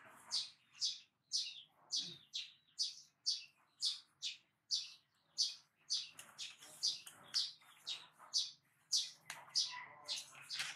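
Baby macaque crying in a steady string of short, high-pitched chirps that fall in pitch, about two a second.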